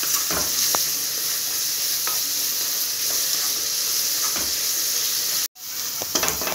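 Sliced onions, green chillies, ginger and garlic sizzling steadily in hot coconut oil in a kadai while being sautéed until soft, stirred with a wooden spatula that knocks and scrapes against the pan a few times. The sizzle cuts out for an instant near the end.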